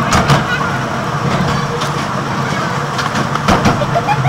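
Small open-carriage tourist train on the move: a steady low drone with scattered knocks and clattering from the carriages.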